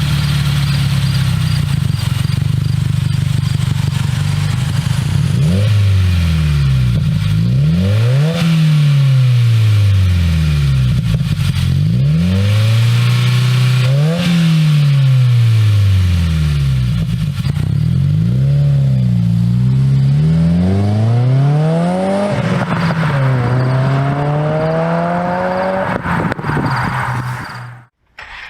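2015+ Subaru WRX's turbocharged 2.0-litre flat-four, heard through an aftermarket exhaust: it idles steadily for about five seconds, then is free-revved about ten times, the pitch climbing and falling back each time, and it cuts off suddenly near the end.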